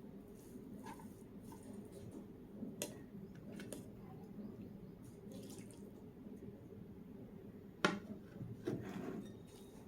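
Quiet eating sounds over a steady low hum, with scattered light wet clicks and a sharper click a couple of seconds before the end.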